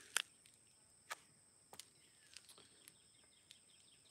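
Near silence in a garden: a faint, steady, high-pitched insect drone, with about six soft clicks scattered through.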